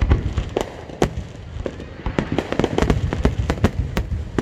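Fireworks display shells bursting in quick succession: a dense run of sharp bangs and crackling reports, several a second, over a continuous low rumble of booms.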